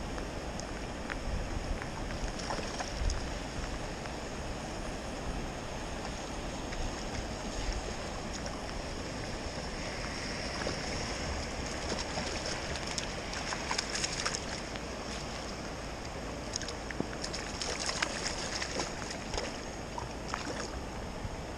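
Steady rush of a fast, high-running spring-fed trout stream, with many short ticks and splashes scattered through it, thickest in the second half.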